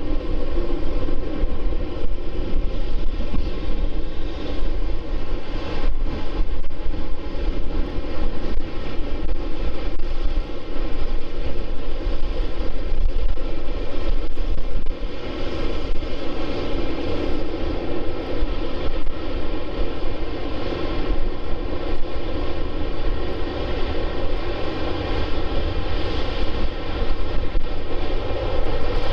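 Boeing 747-8F freighter's four GEnx jet engines running at taxi power as the aircraft rolls slowly along the taxiway: a steady, loud jet rumble layered with many held whining tones.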